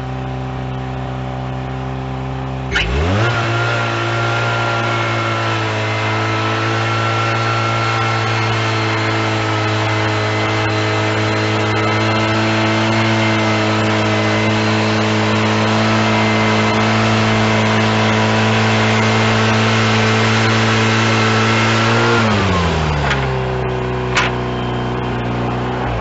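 Wood-Mizer LT40HD sawmill's engine idling, then throttled up sharply about three seconds in and running steadily at cutting speed while the band blade saws along the log. Near the end the engine slows back down toward idle, followed by a sharp click.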